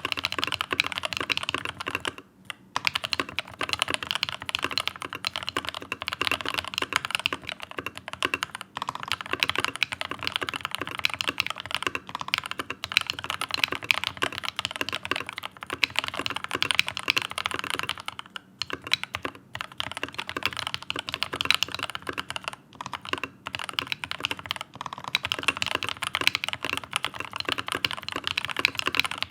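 Leopold FC660M mechanical keyboard with lubed and filmed Tealios linear switches being typed on quickly and continuously: a dense run of keystrokes with a few short pauses.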